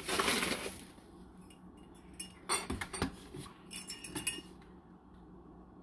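Paper bag rustling, then several light metallic clinks of a stainless measuring cup against a saucepan.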